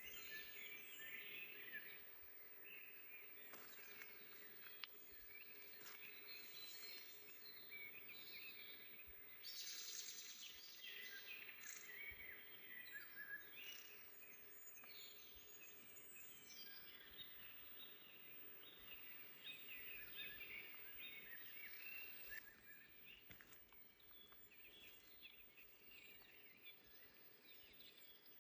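Several small birds singing and chirping in a forest, a dense mix of short high trills and calls, busiest in the first half, over faint ambient hiss.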